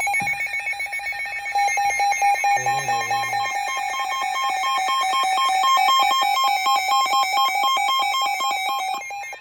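Electronic emergency alert attention tone from a weather alert broadcast: a loud two-pitch alarm pulsing rapidly for about nine seconds, then cutting off shortly before a tornado warning is read. It is the signal that a warning message follows.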